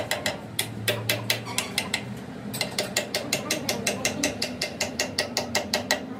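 Rapid, even light hammer taps on a steel drive shaft yoke, about five to six sharp metallic clicks a second, quickening slightly partway through.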